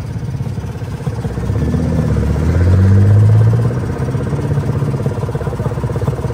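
An engine idling steadily while a car drives past on the road, its engine and tyre sound swelling to loudest about three seconds in and fading away.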